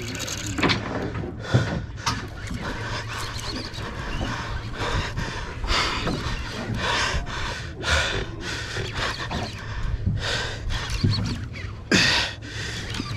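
An angler's heavy breathing close to the microphone: short, hissing breaths about once a second, over a low steady rumble.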